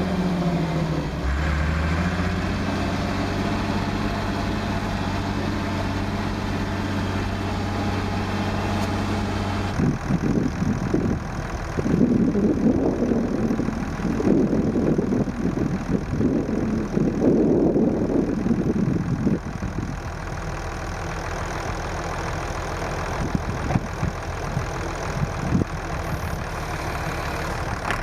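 Massey Ferguson 2705 tractor's diesel engine running steadily, heard from the cab. About ten seconds in, the sound turns abruptly into a louder, rougher, uneven rumble, then settles to a steadier, quieter rumble from about twenty seconds.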